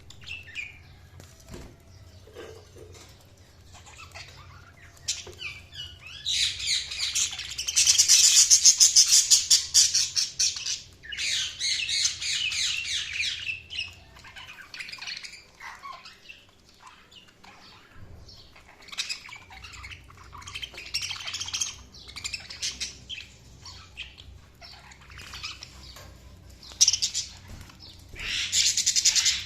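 Budgerigars chirping and chattering in quick runs of calls. The loudest burst of chatter comes from about six to fourteen seconds in, with quieter, scattered chirps between and another loud run near the end.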